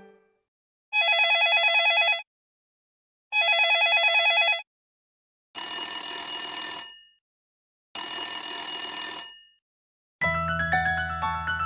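Honor Magic 7 Lite phone ringtones in a classic telephone-ring style: four rings of about a second and a quarter each, separated by silent gaps. The first two are a fast warbling trill and the next two are harsher and buzzier. A chiming melody begins near the end.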